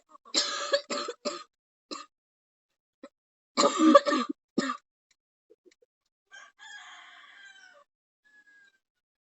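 Harsh coughing in several bursts, the loudest a second-long fit about four seconds in, then fainter sounds. It is a staged cough for a fake coughing-blood prank.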